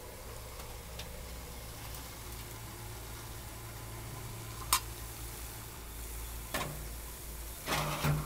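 A metal cook-pot lid is lifted off a pot of boiling water, with a sharp metal clink about halfway through, followed by two short rattling handling noises near the end. Under it runs a steady low hum.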